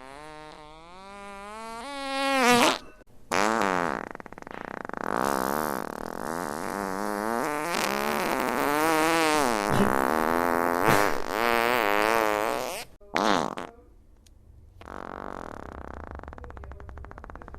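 A string of fart sound effects. A long, wavering fart rises in pitch over about three seconds, then after a short break comes a very long one of nearly ten seconds whose pitch wobbles up and down, a brief one, and near the end a lower, quieter, buzzy fart.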